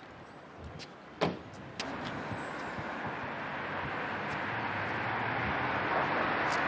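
A car approaching along the street, its noise growing steadily louder over the last few seconds. A single sharp click sounds about a second in.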